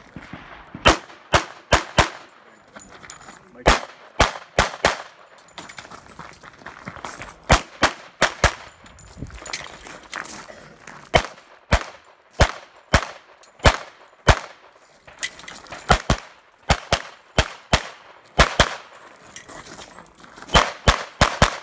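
A long string of pistol shots from a practical-shooting stage run, mostly fired in quick pairs a fraction of a second apart, with short pauses between strings. Each shot is sharp with a brief echo off the range.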